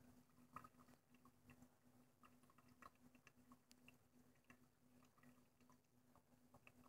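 Near silence: faint room tone with a low steady hum and scattered small clicks.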